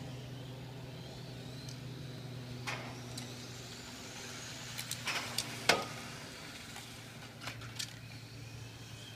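Radio-controlled on-road cars lapping a track: faint high whines rising and falling as they speed up and slow down, over a steady low hum. Several sharp clicks and knocks, the loudest a little past halfway.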